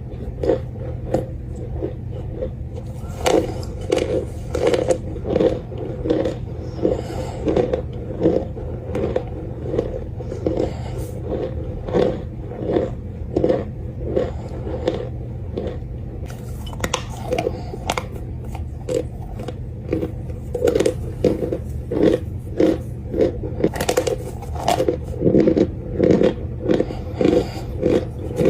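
Close-miked chewing of compressed cornstarch chunks: repeated crisp, crumbly crunches about twice a second, over a steady low hum.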